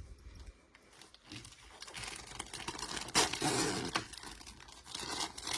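Plastic packaging crinkling and rustling as it is handled and pulled open, starting about a second in and loudest in the middle.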